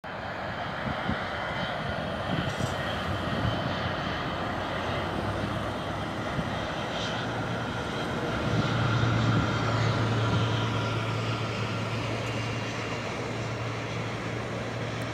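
Boeing 777-200ER's twin jet engines running at low power while it taxis, a steady distant jet noise. A low hum grows louder a little past halfway.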